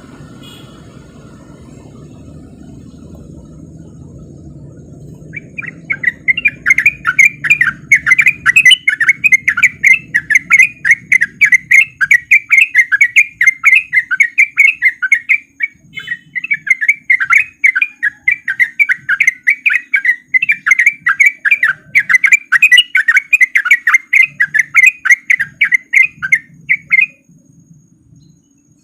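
Sooty-headed bulbul (trucuk) singing a long, fast run of chattering notes, about five a second, in the rapid 'ropel' style. The song starts about five seconds in, breaks off briefly midway, and stops shortly before the end.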